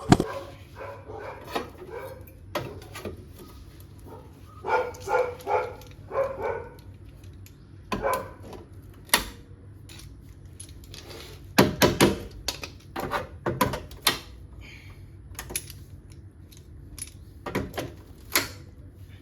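Welder tacking a small steel patch piece onto a rusted SUV running board: short separate bursts of welding with pauses between them, several close together around twelve and fourteen seconds in.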